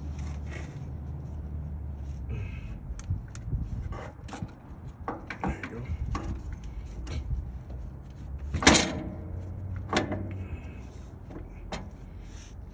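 Scattered knocks and clanks of hand tools and driveshaft parts being handled while working on a truck's rear driveshaft and centre bearing yoke, the loudest a sharp clank a little past the middle, over a low steady hum.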